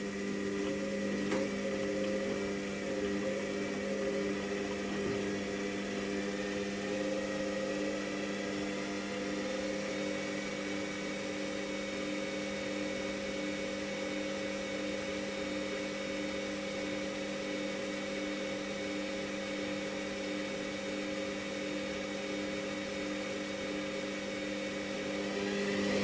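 Washing machine with its drum spinning: a steady motor hum with an even whoosh, starting to grow louder near the end as the spin speeds up.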